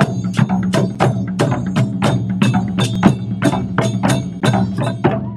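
Japanese taiko drums (chu-daiko and a large odaiko) struck with wooden bachi sticks by an ensemble in a steady, fast rhythm of about four to five sharp hits a second.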